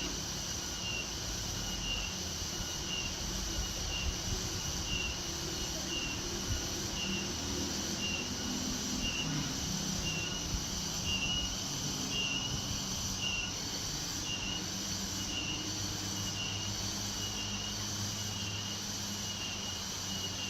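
Forest ambience: an insect chirping in an even, repeating pulse, about one and a half chirps a second, over a steady low hum and hiss.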